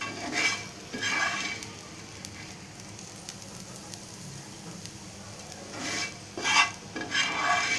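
Wooden spatula scraping fried green chilies and garlic across a non-stick frying pan: two scrapes in the first second and a half, then two more near the end. A faint steady sizzle of hot oil runs beneath and between them.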